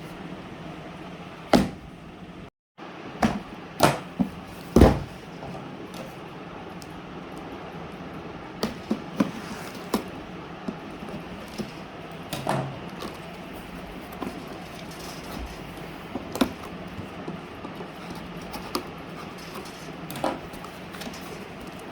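Scattered knocks, taps and clicks of a boxed pop-up toaster being handled and unpacked, over a steady background hiss. The loudest knocks come in the first few seconds.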